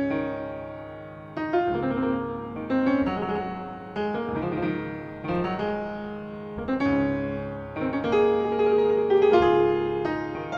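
Two grand pianos playing together: chords and notes struck about once a second, each left to ring and fade, the playing growing louder in the second half.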